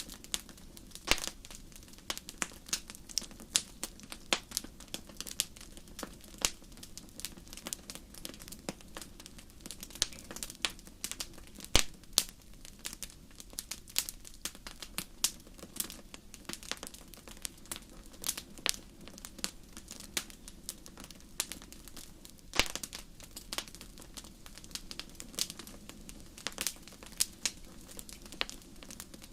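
Wood fire crackling: irregular sharp pops and snaps, several a second, over a low steady hiss.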